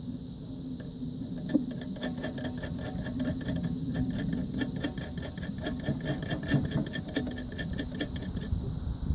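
Rapid run of mechanical clicking while nuts are tightened onto a threaded rod, starting about two seconds in and stopping shortly before the end, over a steady low rumble.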